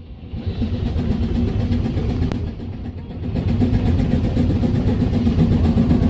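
Case 65 hp steam traction engine running hard on the belt to a sawmill, its exhaust beating fast and steady. The sound eases for about a second about two and a half seconds in, then comes back louder.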